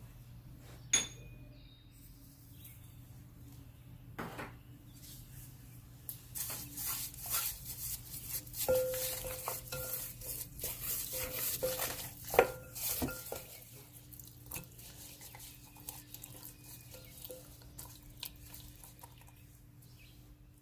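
Kitchen utensils clinking and scraping against dishes during food preparation: a sharp ringing clink about a second in, then a busy stretch of stirring and scraping with a few ringing metal knocks in the middle, fading to scattered small clicks.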